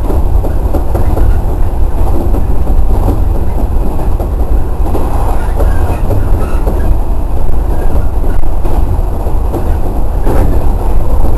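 JR 113 series electric train running along the line, heard from inside the front car: a steady heavy rumble of the wheels on the rails, with faint clicks and one sharper knock about ten seconds in.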